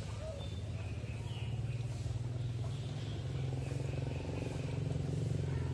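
A steady low drone of an engine running, growing a little louder about a second and a half in. Faint short high chirps sound over it.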